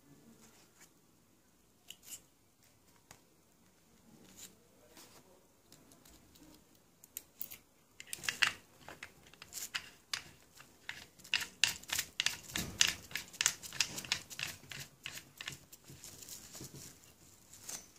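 Small clicks and plastic-film crinkling from a carburetor's fuel inlet parts (filter element, spring, brass inlet nut) being handled and fitted back into the carburetor body. The clicks are sparse at first, then come thick and fast with rustling from about halfway.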